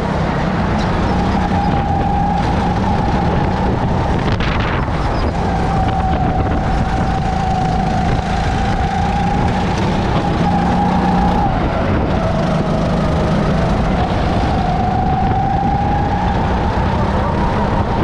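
Racing kart's engine running hard on track, its pitch sagging and climbing again as the kart brakes into corners and accelerates out of them.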